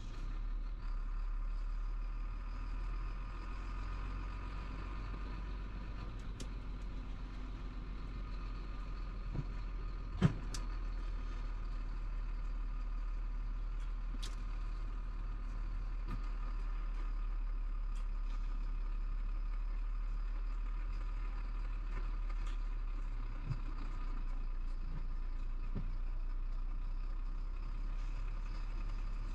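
Chenglong truck's diesel engine running steadily as the truck drives, heard from inside the cab, with scattered light clicks and one sharp knock about ten seconds in.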